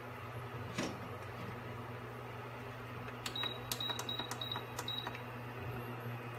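Induction cooktop's touch-panel buttons beeping as they are pressed to set the heat: a quick run of about half a dozen short high beeps between about three and five seconds in, over a steady low hum.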